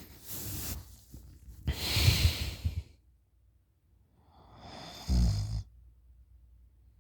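A sleeping person snoring loudly through an open mouth. A breath is followed about two seconds in by a long rasping, rattling snore; a second breath builds and ends in a short, low rattling snore about five seconds in.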